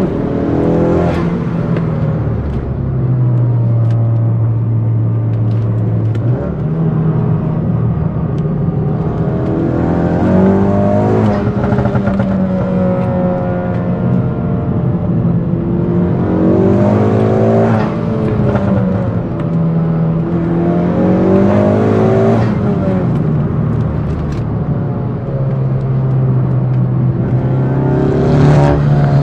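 Tuned 400 bhp Ford Focus ST's engine and exhaust under hard driving, the note swelling and falling in pitch as it accelerates, shifts and lifts off.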